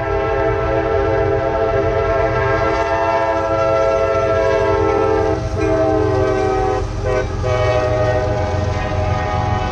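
A diesel locomotive air horn sounds a long blast of several tones at once; its pitch drops about five and a half seconds in as the lead unit, an EMD SD50-2, passes, with a brief break around seven seconds. A low diesel engine rumble runs underneath.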